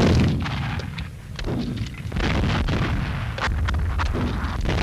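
Battle sounds on an old newsreel soundtrack: a loud blast at the start, then scattered gunshots over a continuous low rumble that grows louder about two seconds in.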